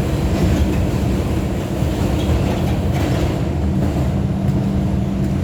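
New York City subway 2 train running at speed between stations, heard from inside the car: a steady, loud rumble of wheels on rail with a motor hum that drops away for about two seconds midway.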